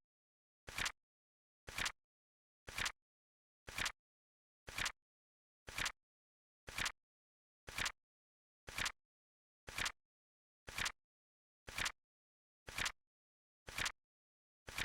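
Flip clock timer sound effect: a short, sharp double click of a flipping card once every second, evenly spaced, with dead silence between.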